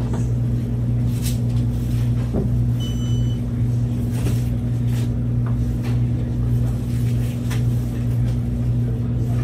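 A steady low hum, with one short electronic beep about three seconds in and a few faint clicks and rustles from the counter.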